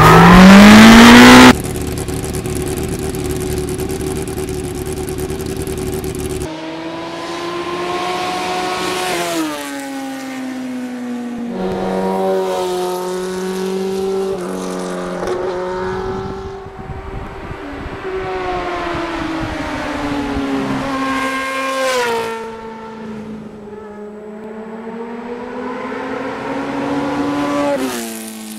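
A loud rising swoosh opens, then a motorcycle engine is ridden past, its note climbing and falling several times as it accelerates.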